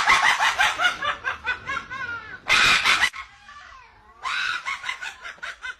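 Cackling laughter in quick rapid pulses, broken by a loud harsh screech about two and a half seconds in, then a further run of laughing near the end.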